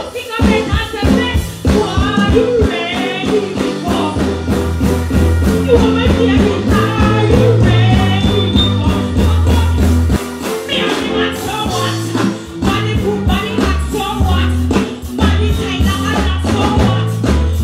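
Live concert music over a big PA: a female performer singing into a microphone over a loud backing track with heavy, steady bass.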